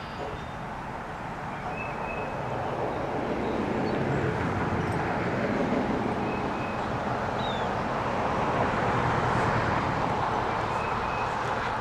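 Steady engine noise from an unseen motor vehicle, swelling over the first few seconds and then holding.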